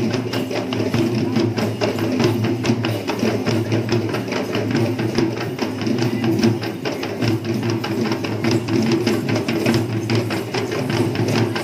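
Traditional Sri Lankan perahera music: fast, dense drumming with a held, wavering melody line over it, played for the procession's dancers.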